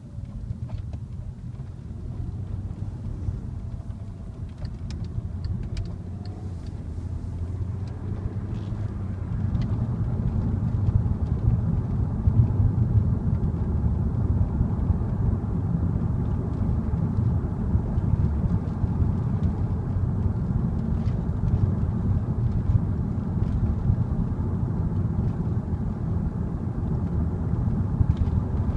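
Volkswagen Passat R36's 3.6-litre VR6 engine and road noise while driving, a low rumble that grows louder over the first ten seconds and then holds steady.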